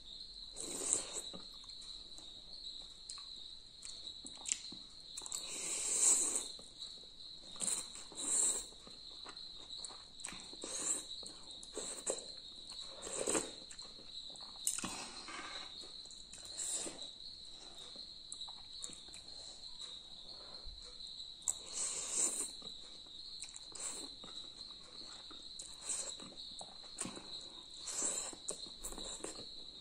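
Close-up mukbang eating sounds: noodles and broth of a thukpa noodle soup slurped from a metal spoon, with chewing, in a string of short irregular bursts. A steady high-pitched tone runs underneath throughout.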